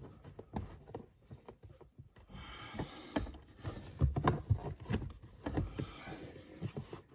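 Plastic interior trim panel being handled and worked loose by hand: scattered clicks, knocks and rustles, with the sharpest clicks about four seconds in.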